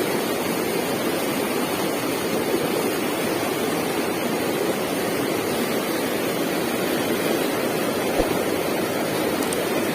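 Shallow stream water rushing steadily over rocks. A small low knock sounds about eight seconds in.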